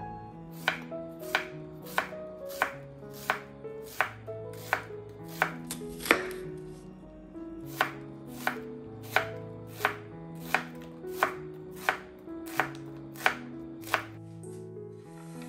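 Chef's knife slicing an onion on a wooden cutting board: a sharp knock of the blade on the board about every two-thirds of a second, with a short break a little after halfway, the cutting stopping near the end.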